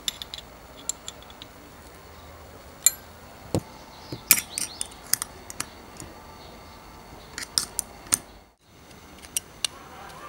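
Irregular sharp metallic clicks and clinks of a steel spanner and brass fittings being handled while a vintage blow torch's valve nut is fitted and tightened.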